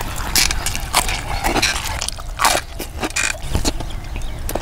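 A man eating cooked rohu fish and rice with his hand: wet chewing and lip-smacking, with irregular short smacks and clicks.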